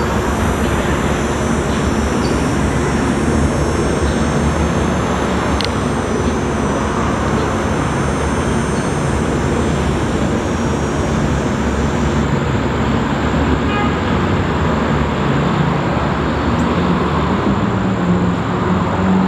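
Distant UH-60 Black Hawk helicopter in flight: a steady, low rotor-blade beat with an engine drone.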